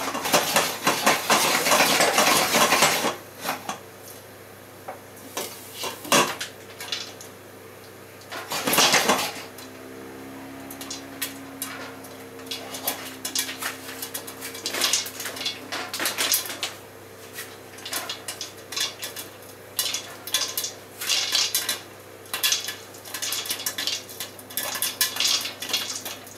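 Popcorn kernels popping in hot oil inside a lidded stainless steel pot, the pops knocking against the pot and its glass lid. They start as scattered pops and become quick, dense popping in the second half. Early on the pot is moved on the burner, with a few seconds of loud rattling.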